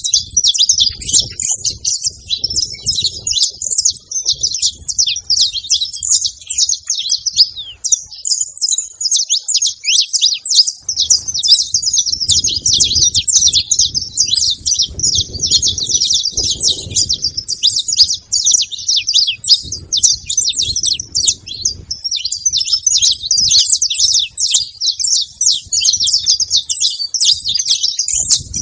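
A flock of saffron finches chirping and calling together, many short, high chirps overlapping without a break.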